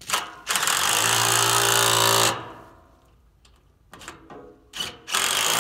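Cordless impact driver running bolts on a transformer's metal terminal bracket, in two bursts: one about two seconds long near the start, and another beginning near the end.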